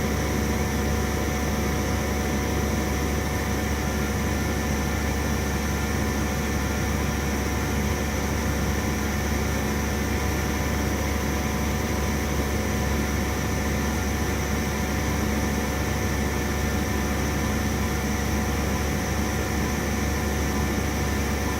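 CNC milling machine running steadily: a constant low hum and hiss with several steady whining tones that do not change.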